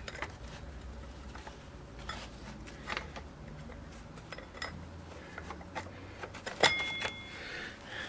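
Motorcycle drive chain clinking and rattling in small taps as it is worked off the rear sprocket by hand. About two-thirds of the way through comes one sharp metallic clink that rings on briefly.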